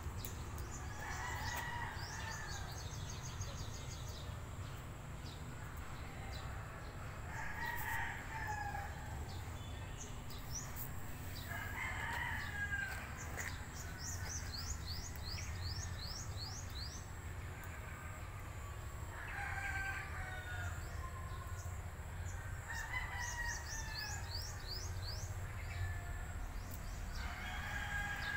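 Roosters crowing over and over, a call about every four seconds, with high, fast chirping trills in between.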